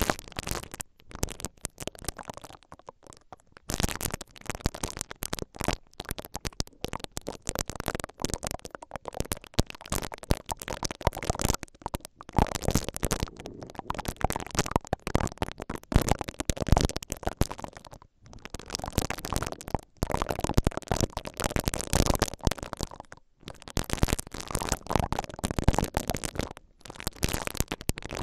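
Silicone bristle ear-pick brushes twisting and rubbing right inside the grilles of a stereo microphone's two capsules, giving dense, crackly scratching with a few short pauses.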